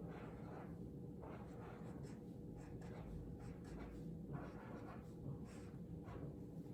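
Handwriting on a paper chart: a faint run of short, irregular scratchy pen strokes as a word is written out.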